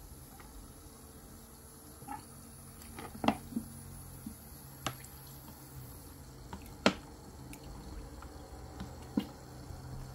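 Scattered light clicks and taps, about a dozen at irregular intervals with the sharpest near three and seven seconds in, over a steady low hum.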